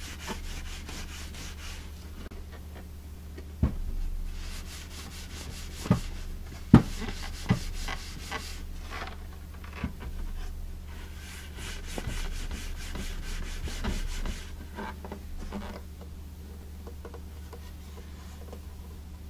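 Soft cloth buffing Howard Feed-N-Wax off the wooden cabinet of a Majestic 5A455 radio, in spells of quick back-and-forth rubbing strokes, with a few light knocks against the wood. The rubbing stops about 15 seconds in.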